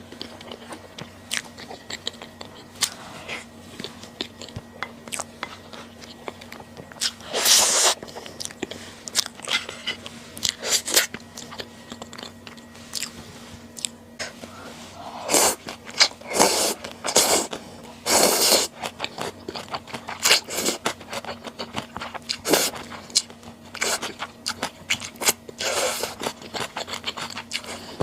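Close-miked eating sounds: a person chewing and biting food, with many short crunches and clicks and several longer, louder noisy bursts, over a faint steady hum.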